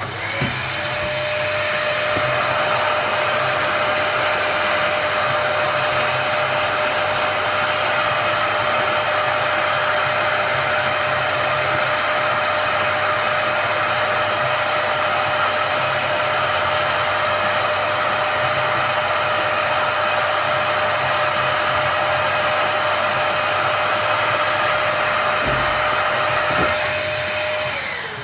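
Vacuum motor running steadily with a rushing airflow and a high whine, then spinning down near the end, its pitch falling as it stops.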